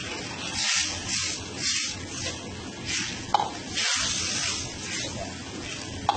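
Garlic chicken gravy bubbling and hissing in a hot wok, the hiss swelling and fading over and over, with a light knock about halfway through.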